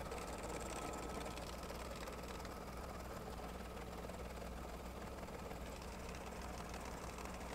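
Baby Lock Destiny embroidery machine stitching a tack-down line around batting: a steady run of rapid needle strokes over the motor's hum.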